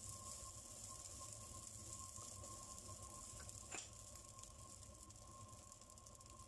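Very faint sizzle of rice frying in a nonstick wok, with one light tap of the wooden spatula about halfway through.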